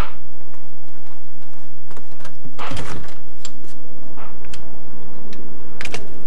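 Kitchen clatter: scattered knocks and clicks over a steady low hum, the loudest knock about three seconds in and another near the end.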